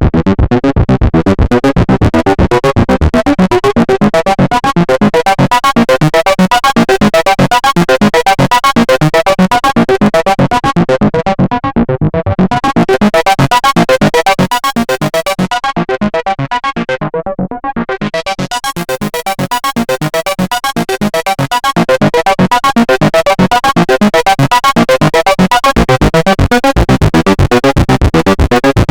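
Behringer Model D analog synthesizer playing a rapid repeating note sequence. Around the middle its tone darkens twice as the filter closes, then brightens again as the filter reopens.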